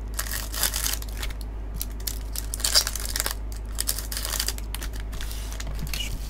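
Foil wrappers of Topps Pro Debut baseball card packs crinkling as they are handled and snipped open with scissors: a run of short rustles and snips, the sharpest about three seconds in.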